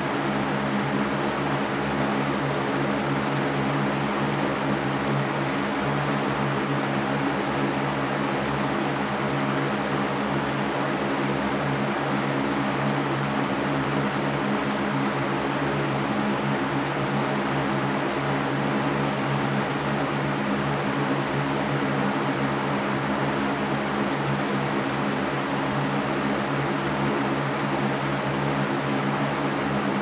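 Large Mastercraft metal-caged floor fan running steadily: an even rush of air with a low hum from the motor underneath.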